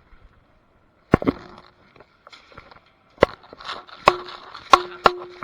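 Five sharp, loud cracks of airsoft fire at irregular intervals, several followed by a brief metallic ring.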